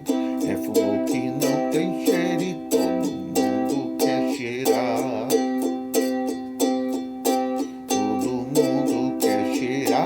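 Ukulele strummed in a steady rhythm, an instrumental passage of chords with no singing.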